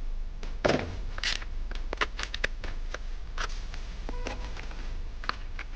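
Scattered light clicks and taps of metal parts being handled as a new guide bar and chain are fitted to a chainsaw.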